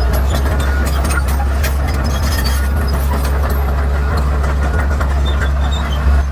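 Bulldozer's diesel engine running steadily under load, with frequent sharp cracks and snaps of brush and dry wood breaking under the machine, and a brief louder thump near the end.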